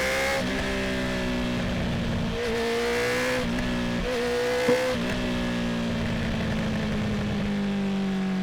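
2019 Honda CB650R's inline-four, breathing through a full Akrapovic titanium exhaust with the dB killer out, running at low, steady revs with small rises and dips in pitch, then slowly winding down in pitch over the last few seconds as the bike eases off.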